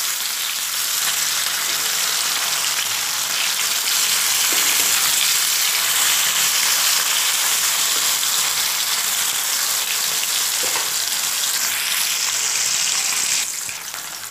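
Snakehead (shol) fish steaks sizzling steadily in hot mustard oil in a kadai, with a metal spatula scraping the pan now and then as the pieces are turned. The sizzle drops noticeably quieter about a second before the end.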